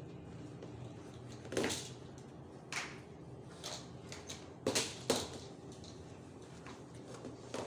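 Steady low hum with about six short, sharp sounds scattered over it, the loudest pair close together a little past the middle.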